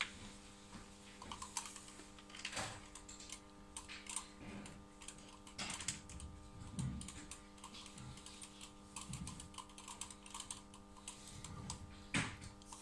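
Faint, scattered clicks and knocks of hands and tools handling parts on a bare engine, with a louder knock near the end, over a steady hum.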